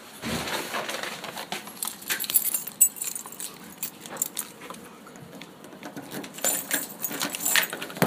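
Keys jangling in a hand: light metallic clinks and rattles that come and go, the loudest about three seconds in.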